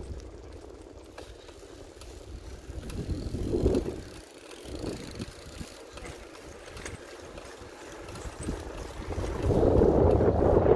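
Wind buffeting the microphone over the low rumble of a bicycle ride. It swells briefly about four seconds in and grows louder near the end.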